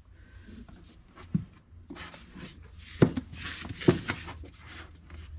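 Paperback manga volumes being handled and shifted: rustling with a few knocks, the sharpest about three and four seconds in.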